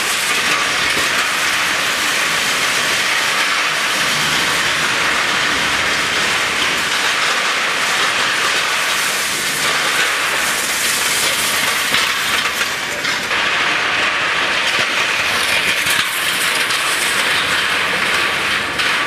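Loaded prowler sled pushed across a concrete floor, its metal runners scraping in a loud, steady rush.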